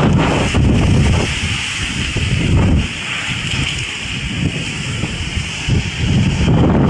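Strong storm wind buffeting the microphone in gusts, a low rumble that swells and eases, loudest in the first second, near the three-second mark and at the end, over a steady hiss of wind-driven air.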